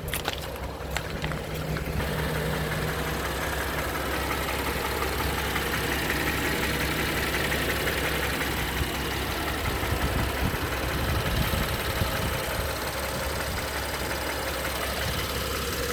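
2016 BMW X3 engine running steadily at idle with an abnormal noise, in a car that has 21 engine fault codes active.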